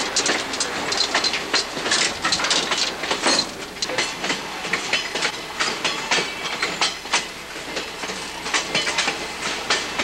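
Passenger train riding over jointed track, heard from on board: a dense, irregular run of wheel clicks and car rattles over a steady rumble.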